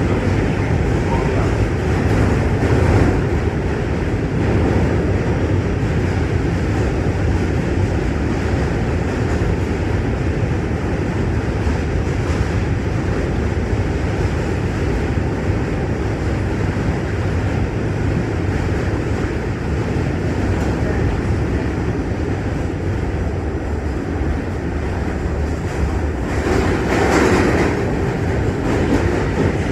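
R46 New York City subway car running at speed across the Manhattan Bridge's steel span, heard from inside the car. It is a steady rumble of wheels on rail, which grows briefly louder and harsher near the end.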